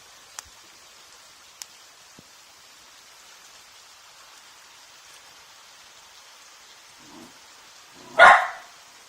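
Steady heavy rain falling, with a few drops ticking. Near the end a dog barks once, loudly.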